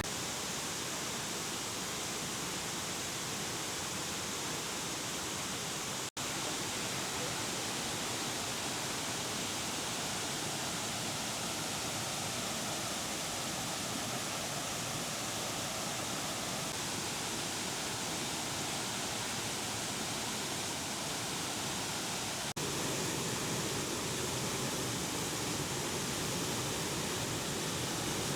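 Steady rushing water, an even hiss like a stream or small waterfall. It drops out for an instant about six seconds in, and gets slightly louder after a cut in the last few seconds.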